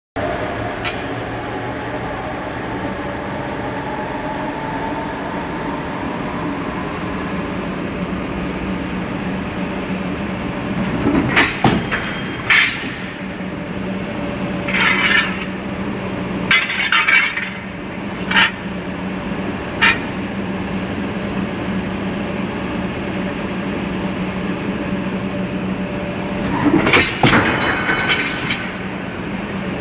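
Glass clinking and knocking in short clusters, several times, over a steady low hum.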